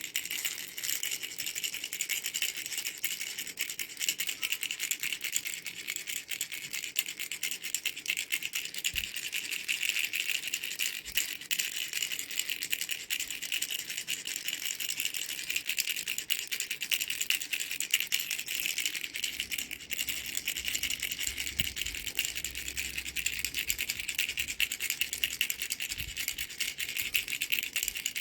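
Mango-shaped baby rattle being shaken steadily, a dense, unbroken run of quick small rattling clicks.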